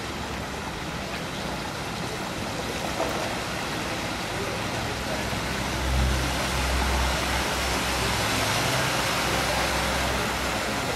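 Steady rushing noise of wind and churning water, with a low rumble swelling about six seconds in.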